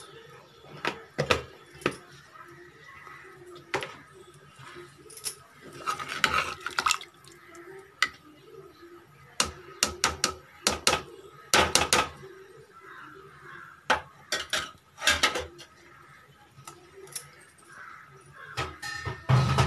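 Steel ladle clinking and scraping against the sides of a metal cooking pot as a thin prawn curry is stirred, in irregular knocks with short pauses between them.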